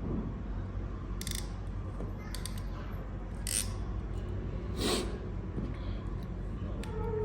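Hand crimping tool working a connector pin onto a cable wire: a few short, sharp mechanical snaps and clicks over a steady low hum.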